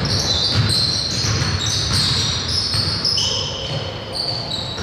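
Basketball game play on a gym court: many short, high sneaker squeaks on the floor over the ball bouncing, in a reverberant hall.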